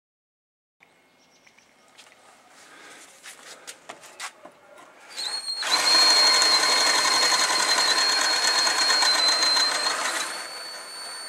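DeWalt 18-volt cordless drill boring a spade bit into a wooden board. A few faint handling clicks come first. About five seconds in, the motor starts with a steady high whine under the rasp of the bit cutting wood. Near the end it goes on more quietly.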